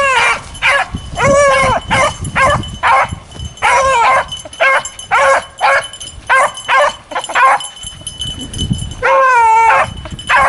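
Beagles baying on a rabbit's track: a quick run of short chop barks broken by a few longer, drawn-out bawls that rise and fall in pitch.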